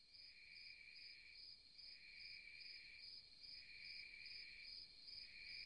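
Insects chirping faintly: a high chirp pulsing about three times a second over a lower trill that swells and fades about every second and a half.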